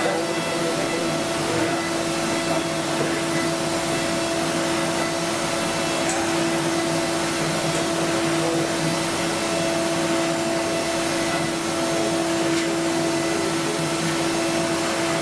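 CNC milling machine running, its end mill cutting a small wooden block: a steady whirring noise with a constant humming tone over it.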